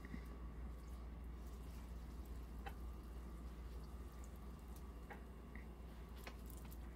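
Faint sizzle of an egg fritter frying in oil in a nonstick pan, with a few sharp clicks of a fork and spatula against the pan as it is turned.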